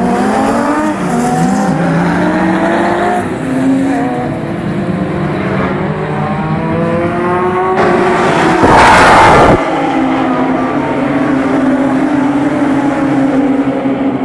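Several historic racing cars, Ford Capris among them, accelerating hard, their engine notes repeatedly rising through the gears and overlapping. About eight seconds in, a loud rushing noise covers everything for a couple of seconds.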